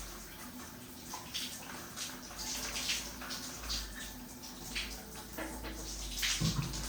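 Running water with intermittent splashes, over a steady low hum.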